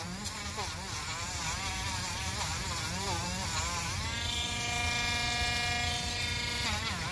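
Handheld rotary tool grinding old tire glue off the bead of a rubber RC car tire. Its whine wavers in pitch as the bit bears on the rubber, then holds steady from about four seconds in before wavering again near the end.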